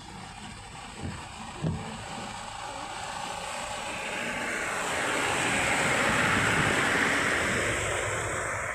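Traffic driving through floodwater in the rain, heard from inside a car: a rushing noise of tyres on water and rain that swells about four seconds in, then cuts off suddenly. Two soft knocks come near the start.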